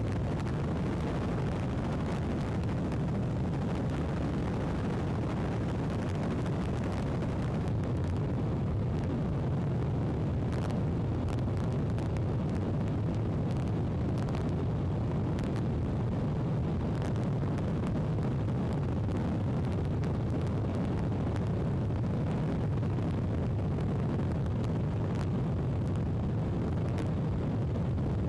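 Steady low drone of an aircraft in flight, heard from on board, with a few faint clicks.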